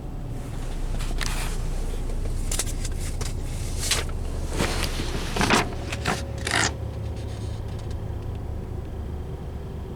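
Low steady hum of a 2015 Ford Edge running, with a handful of short scraping, rustling sounds between about one and seven seconds in.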